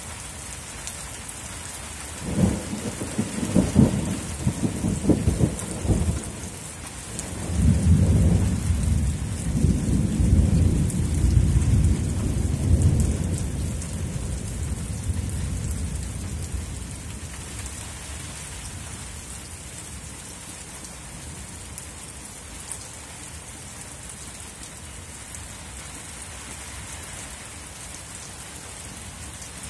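Steady rain falling, with a peal of thunder: sharp cracks about two seconds in, then a long low rumble that fades away by about halfway through.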